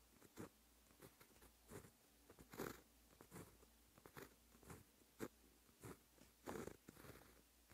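White-ink pen tip scratching on paper while writing characters: faint, short scratchy strokes in an uneven rhythm, about two a second.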